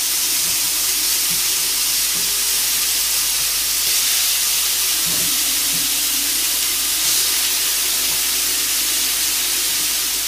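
Marinated salmon pieces sizzling on a hot, oiled grill pan: a steady hiss.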